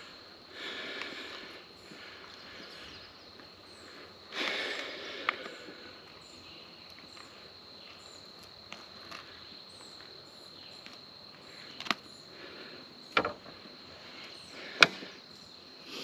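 Insects trilling steadily at a high pitch, with a few rustling swells and sharp clicks from handling while a hook is worked out of a largemouth bass's mouth; the loudest click comes near the end.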